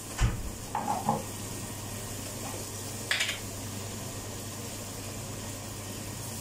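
Steady hiss and low hum of a kitchen, with a dull thump near the start, a couple of light clinks about a second in and a knock about three seconds in, as bowls and containers are handled on a stone countertop.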